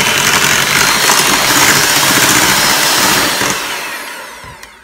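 Electric hand mixer running at speed, its beaters whipping a thin, liquid egg-and-milk cake batter in a bowl; it winds down and stops in the last second or so.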